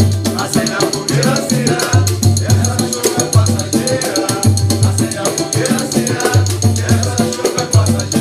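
Samba group playing and singing the chorus: voices over a bouncing bass line, with hand percussion and shakers keeping a steady, busy rhythm.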